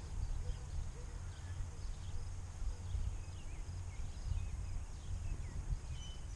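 Wind buffeting the microphone with an uneven low rumble, and faint short bird chirps scattered through it.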